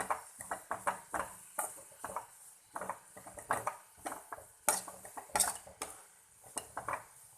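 A cooking utensil scraping and knocking against a kadai as dry fish, onion and curry leaves are stirred together with masala powders. The knocks and scrapes come at an irregular pace, with a few louder ones about five seconds in.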